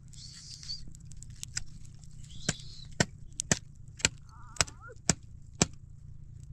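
Dry wood being broken up for a campfire: seven sharp cracks at a steady pace of about two a second.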